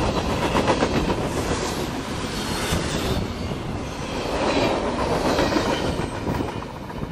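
Freight train of high-sided open-top cars rolling past close by, the wheels clacking over rail joints amid a steady rattle of the cars. The noise eases off near the end as the last cars go by.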